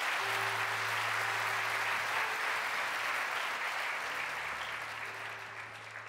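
Congregation applauding, the applause slowly dying away in the last couple of seconds.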